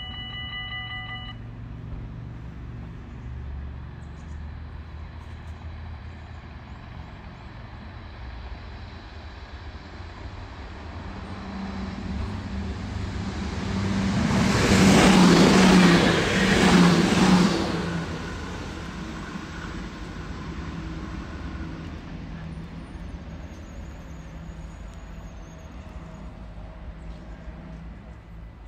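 Level-crossing bells ring and stop about a second in. An NS SGMm Sprinter electric multiple unit then passes over the crossing: it grows louder, is loudest for about three seconds at the middle with a low electric hum, and fades away.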